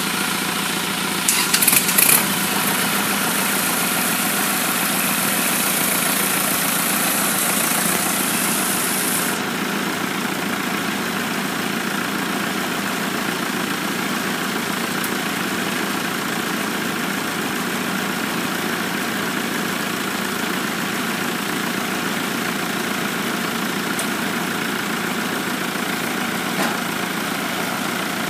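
Kubota L5018 tractor's diesel engine idling steadily. A short burst of sharp clacks about a second and a half in, and a high hiss that cuts off about nine seconds in.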